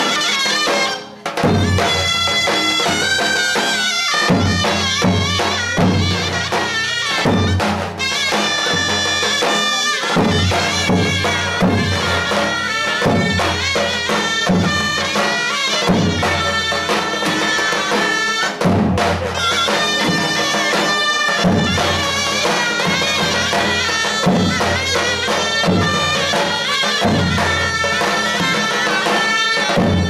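Davul-zurna ensemble playing a Turkish folk tune: two zurnas (double-reed shawms) carry a continuous melody over the low, regular beats of two large davul drums. The music dips briefly about a second in, then runs on.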